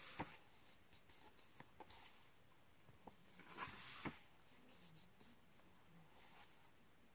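Pages of a paperback colouring book being turned by hand: faint paper swishes and rustles, one at the start and another about four seconds in, with a few soft taps between.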